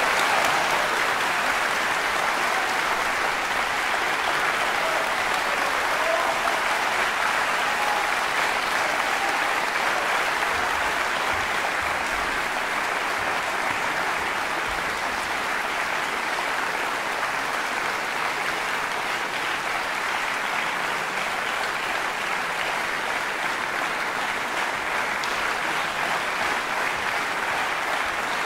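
Concert-hall audience applauding steadily, a dense, even clapping that holds at the same strength throughout.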